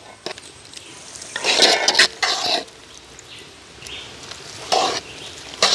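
Metal spoons stirring and scraping crushed potato and yam against the sides of metal cooking pots, in irregular bursts, the longest starting about a second and a half in.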